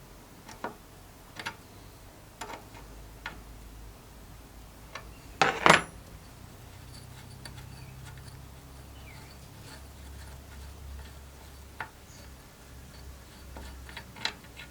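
Metal stove parts being handled: scattered clinks and knocks, with one louder clatter about five and a half seconds in and a few quick clicks near the end.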